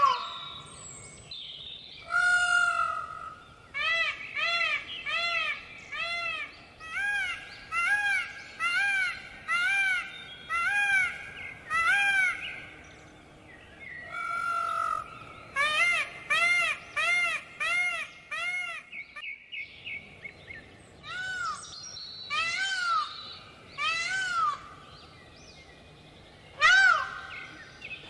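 Indian peafowl (peacocks) calling: loud, nasal, wailing calls repeated in runs of several, about one to two a second, with short pauses between runs.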